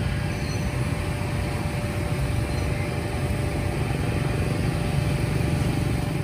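Steady rumble of motorbike street traffic passing close by, with a constant thin hum running underneath.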